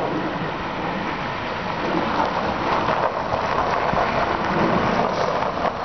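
1968 Mercedes-Benz 280SE sedan with its six-cylinder petrol engine driving up and rolling onto gravel, its tyres crunching over the stones.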